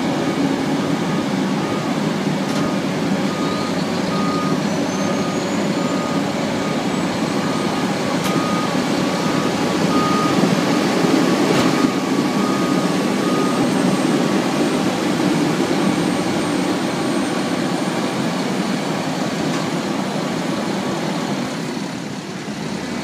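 Heavy engines of a street sweeper and garbage truck running steadily under load while the sweeper's raised hopper dumps into the truck. A reversing alarm beeps about twice a second and stops about halfway through, and a faint rising whine comes a few seconds in.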